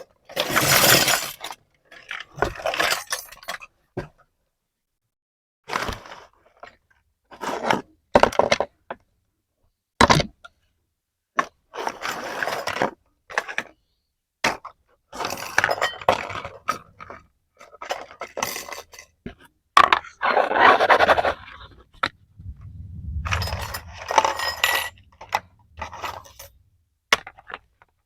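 Plastic toy kitchen set pieces and packaging being handled during unboxing: short bouts of scraping and clinking of hard plastic, with silent gaps between them.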